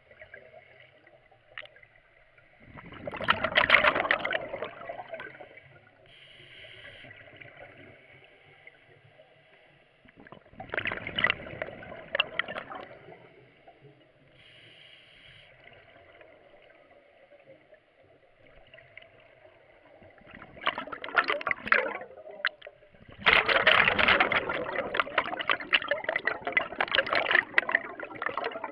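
Underwater scuba breathing: exhaled air bubbling and gurgling out of a regulator in four loud bursts, the last about five seconds long, with quieter stretches between breaths.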